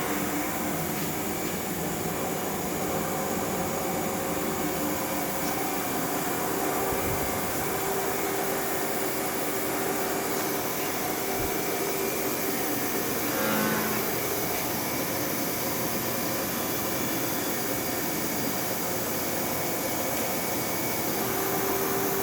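Gear-cutting milling machine cutting a hypoid gear: a steady machine hiss with several held tones that shift slightly, swelling briefly about two-thirds of the way through.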